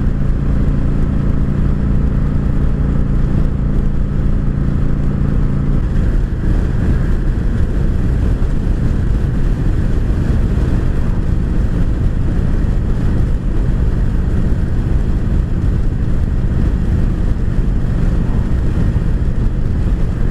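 Kawasaki Vulcan 900 V-twin cruiser engine running steadily at cruising speed, heard with heavy wind rumble on a helmet-mounted camera microphone. About six seconds in the engine note drops to a lower pitch and carries on steady.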